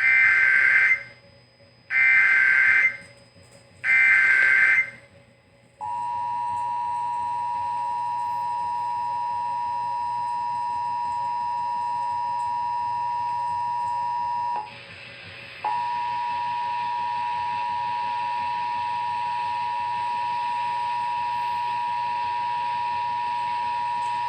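Emergency Alert System test signal: three one-second bursts of warbling digital SAME header data tones, a second apart, then the steady two-tone EAS attention signal (853 and 960 Hz sounding together). The attention tone drops out for about a second midway and resumes. It marks the start of a Required Monthly Test.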